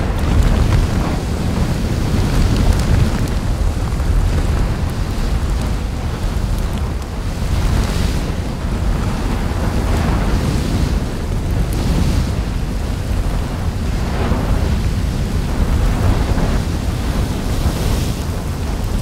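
Volcanic eruption: lava fountaining and spattering in a crater. A steady deep rumble is broken by irregular, louder splashing surges every second or two.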